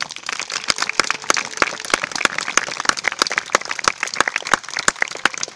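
Audience applauding, with a few louder claps close by.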